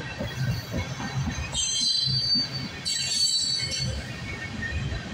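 Freight train tank cars rolling past with a steady low rumble of steel wheels on rail. Twice, starting about a second and a half in and again about three seconds in, the wheels give a high-pitched squeal lasting about a second.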